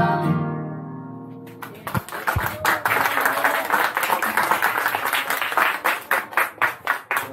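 A choir's final sung chord fades out, then an audience applauds for about five seconds, the clapping thinning into separate claps near the end.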